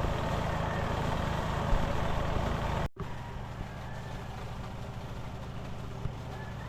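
Spin-dry tub of a twin-tub washing machine running a rinse spin, with a steady motor hum and the rush of spinning water. It breaks off for a moment about three seconds in, then carries on at a lower level.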